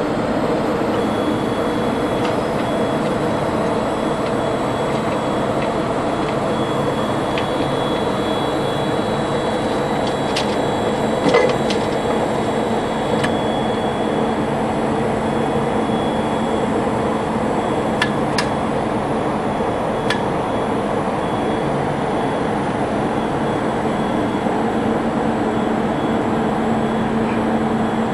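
Steady machinery hum with a few constant tones, broken by scattered faint clicks and one louder knock about eleven seconds in.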